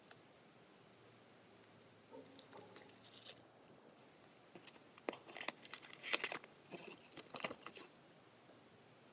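A small cardboard box of firecrackers being handled and opened: soft rustling of the packaging, then a cluster of crisp clicks and crinkles from about five to eight seconds in as the box is opened and the firecrackers inside are touched.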